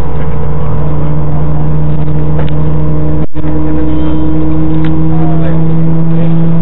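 Airbus A320 cabin noise while taxiing: the engines' steady drone with a couple of steady hums, which rise slightly in pitch after the sound cuts out for an instant about three seconds in.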